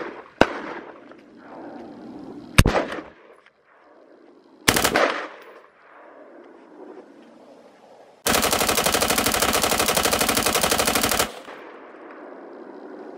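AR-15 rifle with a bump stock firing: a few separate single shots a couple of seconds apart, then about eight seconds in a continuous rapid bump-fire burst lasting about three seconds, with echo trailing off after it.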